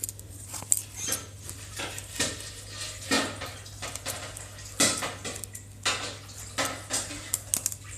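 Stiff slime with sponge cubes mixed in, squeezed and pressed by hand, giving irregular sticky clicks and crackles.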